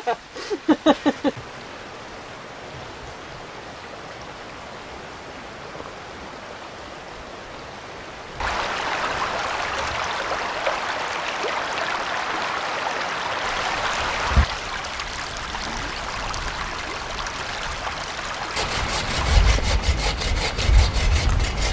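Steady rushing of a brook, stepping up sharply in level about eight seconds in. A single knock comes about two-thirds of the way through, and a quick rhythmic scratching over a low rumble starts near the end.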